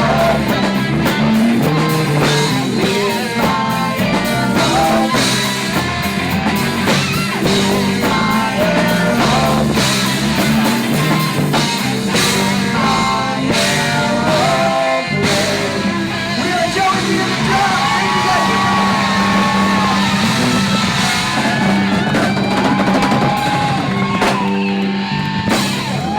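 Rock music with electric guitar, drum kit and singing. Sustained bending guitar notes come in about two-thirds of the way through.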